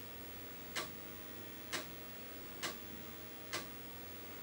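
Apple Disk II 5.25-inch floppy drive writing a DOS 3.3 disk image track by track. Over a faint steady hum, the head clicks as it steps to the next track about once a second, four times.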